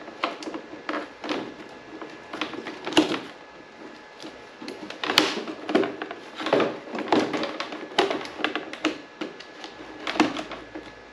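Plastic glove box and trim panel of a Can-Am Ryker being worked loose and lifted out by hand: irregular clicks, knocks and rattles of hard plastic.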